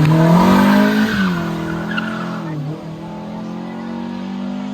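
Race car engine accelerating hard: revs climb, drop at a gear change about a second in, climb and drop again at a second shift near three seconds, then hold at steady high revs as the car moves away.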